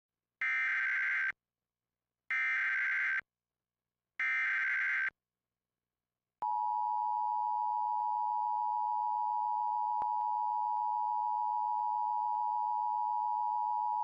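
Emergency Alert System activation on an FM radio station: three roughly one-second bursts of SAME digital header data, evenly spaced. About six seconds in, the steady EAS two-tone attention signal (853 and 960 Hz together) starts and holds.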